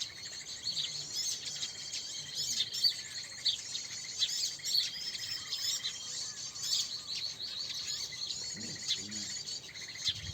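Many small birds chirping and calling at once: a dense, overlapping chatter of short high chirps and trills, with a thin held whistle now and then.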